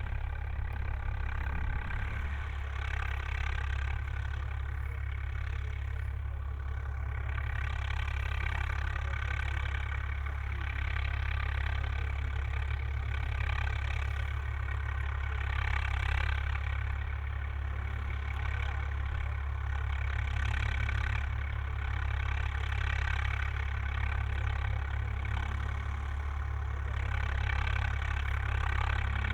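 Swaraj 855 FE tractor's diesel engine running steadily while pulling a plough through a field.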